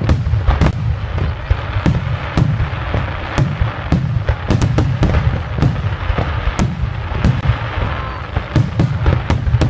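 Aerial firework shells bursting in rapid succession: sharp bangs two or three a second over a continuous low rumble.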